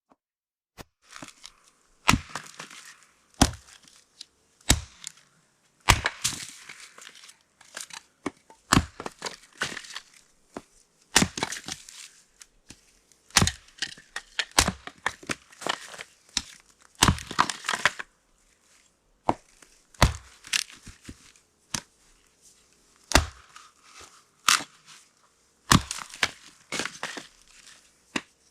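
Firewood being split: a long run of sharp strikes, roughly one every second or two, each with the crack and crackle of wood splitting apart.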